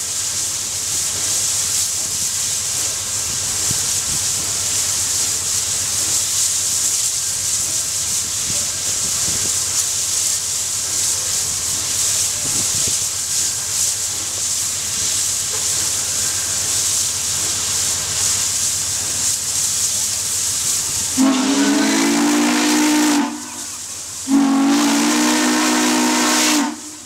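Steam locomotive Southern Pacific 4449 hissing steadily while standing, then its chime steam whistle blows two long blasts near the end. Two long blasts are the railroad signal that the train is about to move off.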